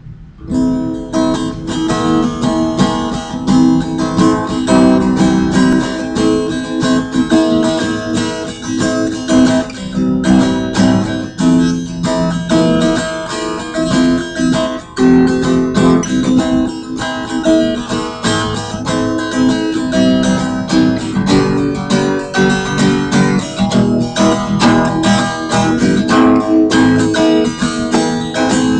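Guitar music, strummed acoustic guitar chords in a steady rhythm, starting about half a second in.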